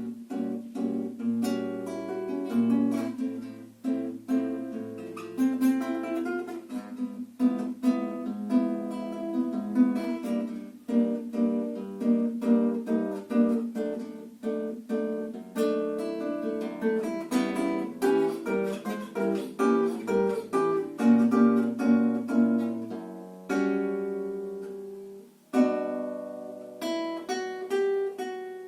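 Solo guitar playing a piece: plucked notes and chords in a flowing line. Near the end one chord is left to ring and fade before the playing picks up again.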